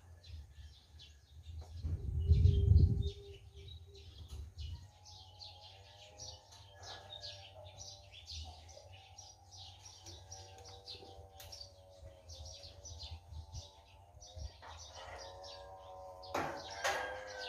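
Many small birds chirping continuously. About two seconds in, a brief loud low rumble like wind or handling noise on the microphone, and from about five seconds on a faint steady hum under the birdsong.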